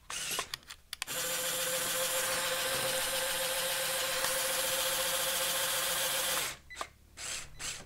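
A few clicks, then the electric motors and gearing of a Mould King building-block crane truck whirring steadily with a constant whine for about five seconds before stopping abruptly.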